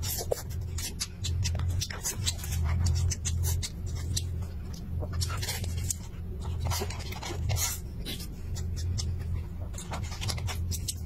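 Close-up eating sounds: wet chewing and lip-smacking as rice and minced meat are shovelled in with chopsticks from a plastic cup, with many small clicks throughout. A low hum swells and fades underneath.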